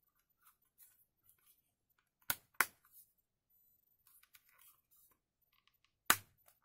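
Android tablet's plastic casing being snapped back together: two sharp clicks of the snap-fit clips a moment apart about two seconds in, a fainter click after them, light handling rustle, then one loud click near the end as the last clip seats.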